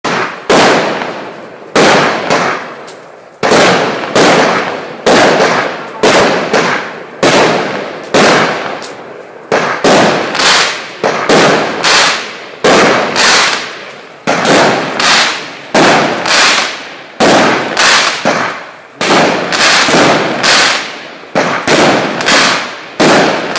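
Celtic Fireworks 'Hanky Panky' firework cake firing shot after shot, about one to two sharp bangs a second, each fading quickly before the next.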